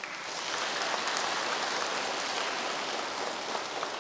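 Audience applauding: a steady round of clapping from many people that swells up at the start and begins to die away near the end.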